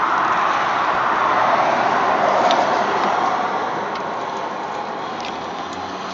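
Road traffic passing: a steady rush of tyre and engine noise that swells about a second in and then slowly fades.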